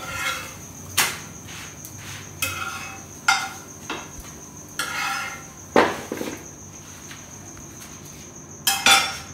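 Metal spatula clinking and scraping on a tawa (flat griddle pan) and a plate as the cooked parathas are handled: a scattering of sharp knocks and short scrapes, the loudest near the end, over a steady high-pitched whine.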